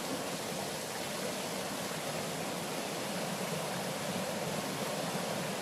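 Steady rush of running stream water, an even hiss that does not change.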